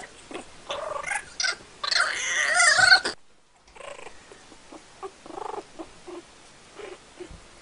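A puppy and a kitten squabbling. About two seconds in there is a loud squalling cry lasting about a second, after which come fainter growls and scuffles.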